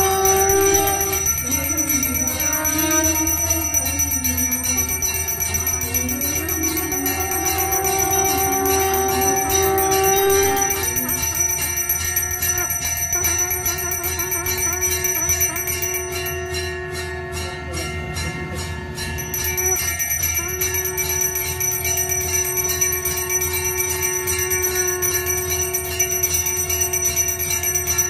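Small puja hand bell (ghanti) rung rapidly and without pause during the aarti, many overlapping ringing tones, dipping briefly in loudness a little past the middle.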